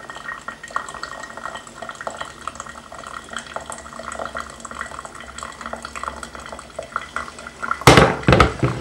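Hot water from a kettle trickling into a filter cone of coffee grounds, with many small crackling, dripping ticks as it soaks through. Near the end, a few loud knocks as the kettle is set down on the worktop.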